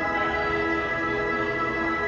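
Music: a short note repeating about twice a second under steady held high tones.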